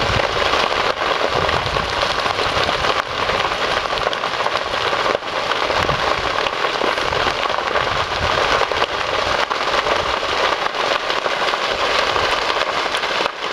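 Dry grass and brush burning in an open field burn: a dense, steady crackle with many fine snaps.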